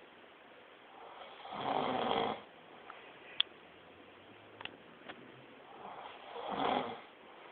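A man snoring: two long snores about five seconds apart, with a few short clicks in the quiet between them.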